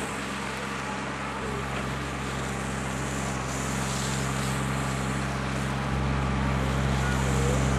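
An engine running steadily with a low hum, slowly getting louder.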